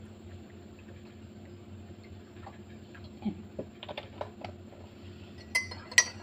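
Small scattered clicks and taps of tableware being handled, then near the end a spoon striking a bowl several times, sharp clinks with a short ring.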